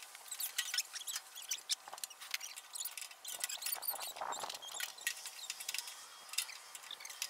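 Hand socket ratchet clicking in short, irregular runs while bolts are worked loose on the lawn tractor's small engine, with a brief rasp about four seconds in.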